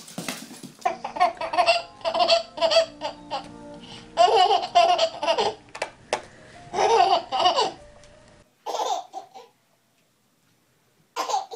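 Babies laughing hard in repeated bursts of quick, pitched laughs. Toward the end the laughs come as short separate bursts with silent gaps between them.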